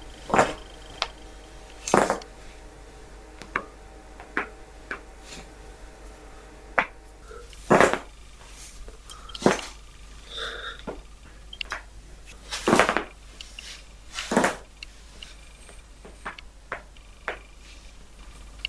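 Joints in the neck and back cracking during a self-administered chiropractic adjustment: a dozen or so sharp pops and cracks a second or two apart, the loudest of them a little over halfway through.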